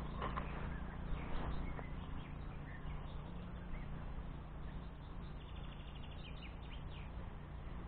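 Wind buffeting the microphone as a steady low rumble, with a few faint bird chirps, mostly in the second half.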